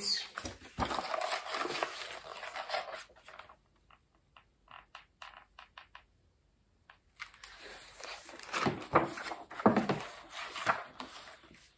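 Rustling and scraping of a picture book and a cardboard picture card being handled, with scattered small clicks in a quieter stretch in the middle.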